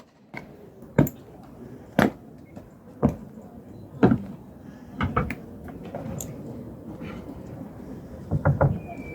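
Guards' boots striking the ground in slow, measured steps, about one knock a second, with a quick cluster of knocks near the end, over a low crowd murmur.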